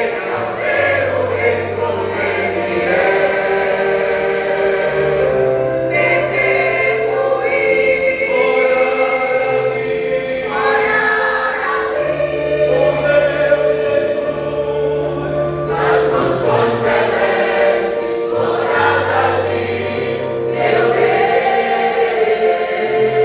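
A church vocal group singing a gospel song in harmony over instrumental accompaniment, with held low bass notes that change every second or two.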